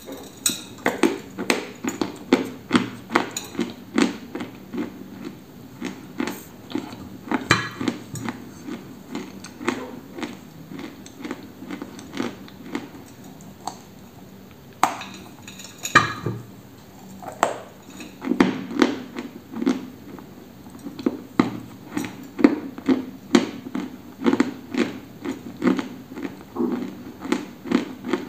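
Close-up crunching as dry, chalky white lumps are bitten and chewed: sharp crisp cracks about twice a second over duller chewing. A couple of louder bites come about halfway through.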